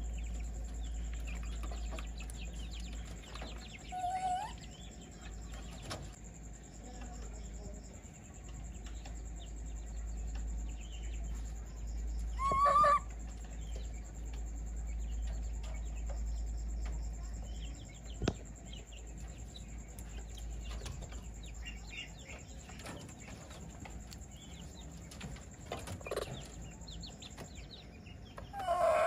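Chickens clucking now and then, with one louder call about halfway through, over a steady low hum.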